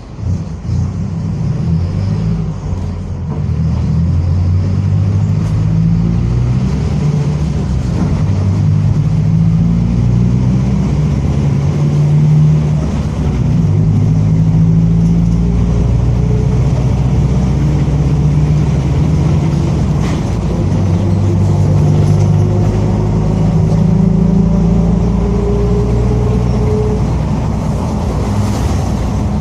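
Mercedes-Benz OF-1722M city bus accelerating through its gears, the diesel engine's note climbing and dropping back at each shift. Through the second half a thin whine rises steadily with road speed: the differential growling, a noisy differential.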